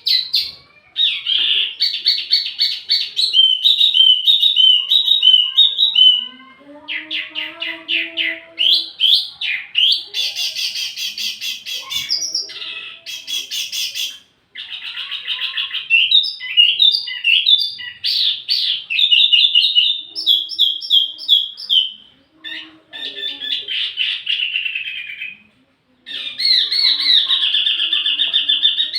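Wambi mini songbird singing: fast high chattering trills and warbled phrases in loud bursts, broken by short pauses.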